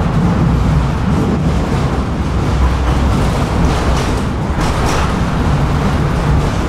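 Tram running along the track, heard from inside the passenger car: a steady rumble of wheels on rails under a low hum, with a brief hiss rising about four to five seconds in.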